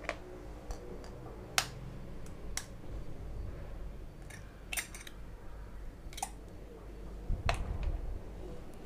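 Eggs being cracked by tapping the shells with a steel spoon: several sharp, separate clicks and taps spaced about a second apart.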